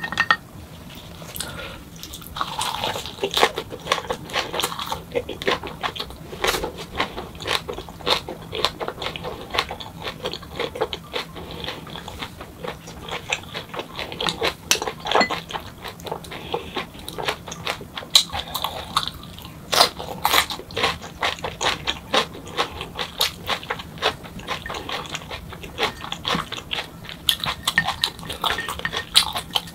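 Close-miked chewing and mouth sounds of a mukbang eater: wet smacks and clicks from a mouthful of perilla-leaf wrap with boiled pork, and a crunchy bite into a raw green chili pepper. A few sharper clinks of chopsticks against a bowl are mixed in.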